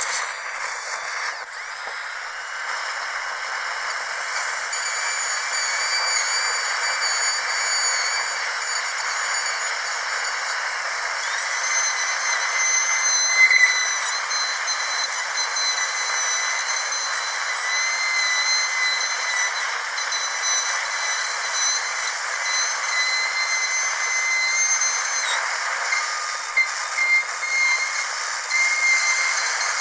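Dentist's drill running continuously: a steady hiss with several high, slightly wavering whine tones above it, and a few brief louder flares.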